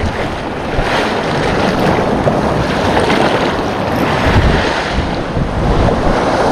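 Sea waves washing against the shore, with wind buffeting the microphone.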